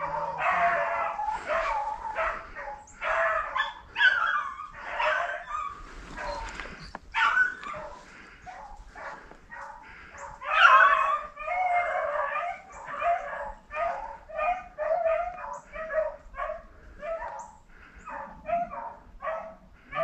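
Rabbit dogs barking on a rabbit's trail: a long string of short barks, several a second at times and louder in places, the sign of the dogs running the rabbit.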